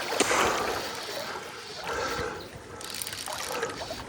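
Moving stream water with light splashing and trickling.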